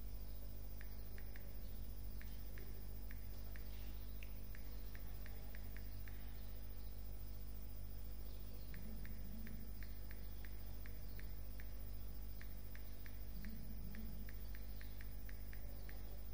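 Steady low hum with two runs of faint, short ticks, a few a second, one in the first half and one through the second half.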